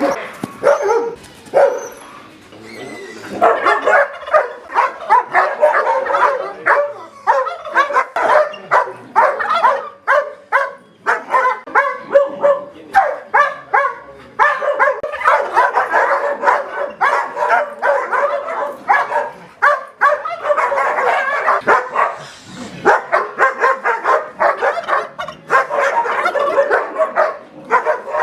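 Guard dogs barking aggressively, a few barks and then, from about three seconds in, rapid nonstop barking with yelps mixed in, pausing only briefly near the end. This is the barking of dogs trained for aggression against intruders.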